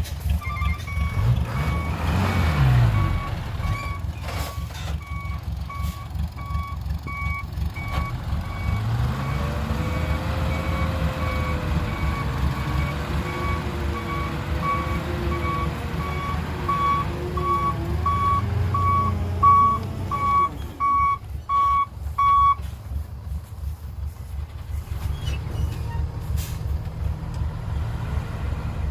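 A truck's reversing alarm beeps steadily over its engine, which revs up several times. The beeping stops about three-quarters of the way through, and the engine runs on.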